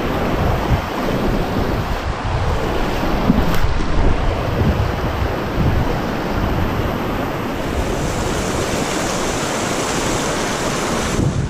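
Strong wind buffeting the microphone over a steady rushing hiss, with a brighter, higher hiss coming in near the end.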